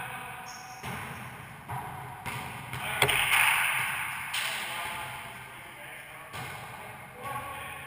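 Rubber wallyball being struck and bouncing off the walls and hardwood floor of an enclosed racquetball court: a series of sharp, echoing smacks, the loudest about three seconds in, ringing on in the court for over a second. Near the end a few lighter bounces of the ball on the floor.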